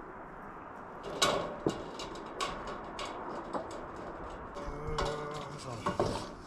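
Irregular sharp clicks and knocks from handling sheet-metal roofing panels and tools, with a short pitched whine a little before the end.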